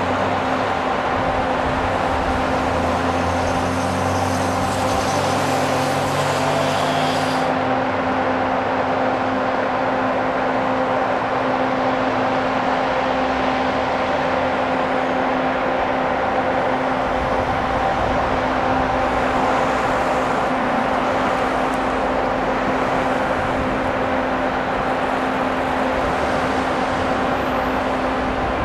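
Construction-site machinery running: a steady pitched drone over constant mechanical noise. A high hiss cuts off about seven seconds in, and a deeper engine rumble comes in past the middle.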